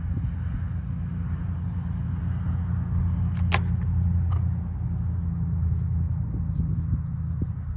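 A low rumble that swells in the middle, and one sharp click of stone knocking on stone about three and a half seconds in as a rock is taken from a pile of rocks.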